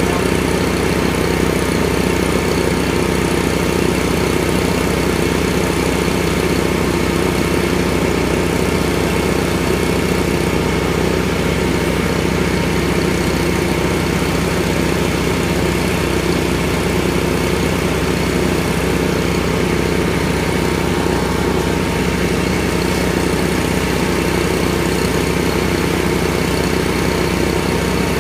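The engine of a helical-pier installation machine running steadily as it drives a helical pier into the ground.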